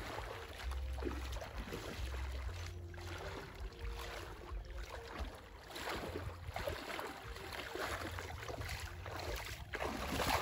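Water splashing and sloshing irregularly, with a low rumble underneath.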